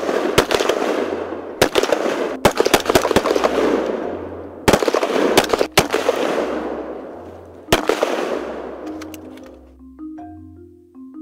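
A series of loud rifle shots, about five or six in the first eight seconds, each trailing off in a long noisy rumble. Marimba background music plays underneath and comes back to the fore near the end.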